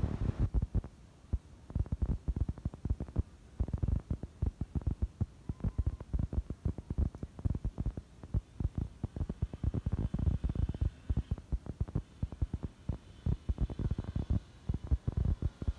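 Race car engine running as the car laps the oval, heard across the track as a low, uneven throbbing rumble.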